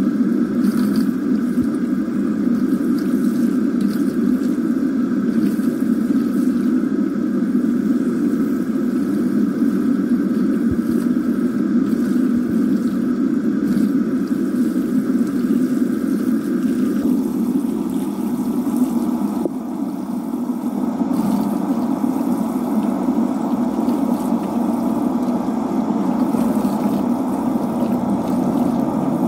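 Kitchen faucet running, its stream pouring over wet hair and splashing into a stainless-steel sink as the hair is rinsed. A steady rush of water whose tone shifts a little over halfway through.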